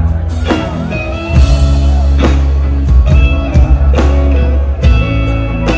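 Live rock band playing a slow ballad intro: drum kit with heavy strikes about once a second under electric guitar lead with bent, wavering notes and bass.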